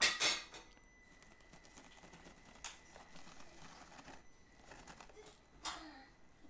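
Traxxas TRX-4M micro crawler, geared with low-speed crawler gears, climbing a rough rock course: its tyres scrape and scuff over the surface, loudest in a short burst at the start and again near the end, over a faint steady high whine from its drivetrain.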